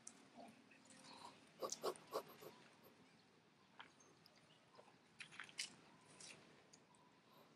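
Near silence broken by a few faint, short clicks and scuffs: a cluster about two seconds in and another about five seconds in.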